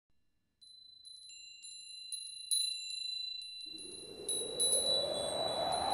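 Sparkling, high chime tinkles begin about half a second in, struck again and again, with ringing tones that hang on. A little past halfway a rising whoosh swells up beneath them.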